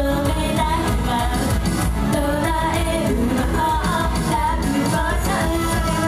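Japanese idol pop song performed live: the group's voices singing over music with a steady beat.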